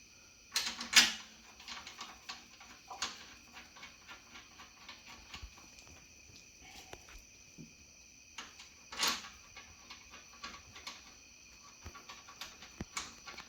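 Scattered light clicks and knocks from handling the mounting bolts of a new hub bearing assembly and threading them in by hand. A louder knock comes about a second in, and another about nine seconds in.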